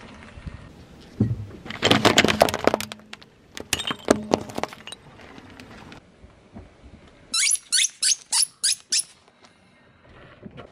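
Crunching and cracking under a car tyre, then six rubber ducks squeaking in quick succession, about three a second, each squeak rising in pitch as the tyre rolls over them.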